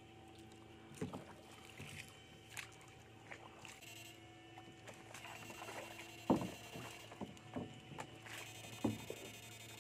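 Water sloshing and splashing as a long-handled wire-mesh scoop net is swept through a shallow muddy canal and among water hyacinth. There are several short, sharper splashes, the loudest a little after six seconds in.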